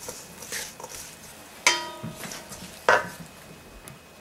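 Wooden spoon tossing a bean and quinoa salad in a stainless steel mixing bowl: soft scraping and squishing, with two sharp knocks of the spoon against the bowl, about a second apart, each leaving a brief metallic ring.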